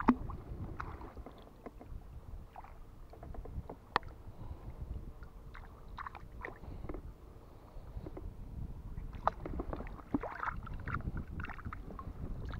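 Water lapping and gurgling close to the microphone over a steady low rumble, with scattered small knocks and clicks of fishing tackle being handled, busier near the end.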